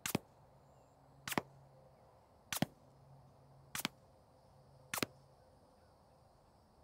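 Ruger PC Carbine 9mm fitted with a CGS Group Kraken 9 suppressor, firing Fiocchi 158-grain subsonic ammunition: five suppressed shots, evenly paced about 1.2 seconds apart.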